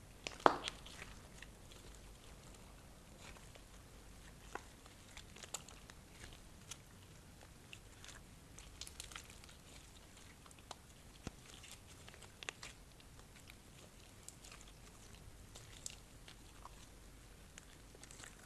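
Slime being worked by hand, with scattered soft clicks, pops and crackles and one sharper pop about half a second in.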